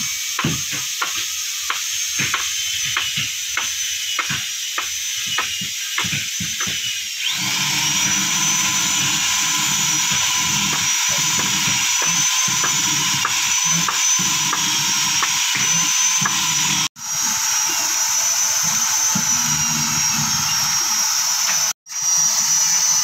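Sharp knocks about three a second for the first several seconds. Then a handheld electric drill starts and runs steadily on the wooden boat hull, cut off suddenly twice near the end.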